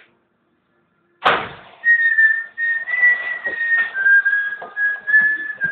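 A high whistling tone holding a few nearby pitches and stepping lower about four seconds in, over rattling noise and knocks inside a bus. It starts suddenly about a second in.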